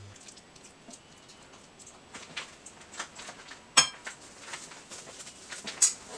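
Marinated chicken pieces being mixed in a ceramic bowl: scattered soft clicks and sticky squelches, with two sharper clicks about four and six seconds in.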